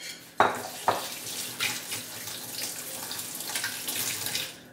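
Tap water running into a kitchen sink for about four seconds, starting with a couple of knocks and shutting off abruptly near the end.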